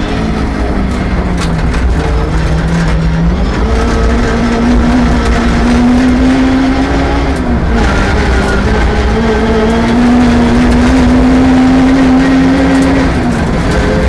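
Rally car engine pulling hard under load. Its pitch climbs steadily through each gear and drops sharply at the gear changes, about halfway through and again near the end.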